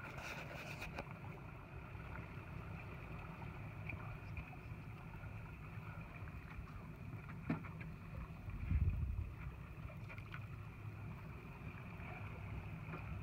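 Boat engine running slowly at low speed, a steady low rumble, with a sharp click about seven and a half seconds in and a short low thump a second later.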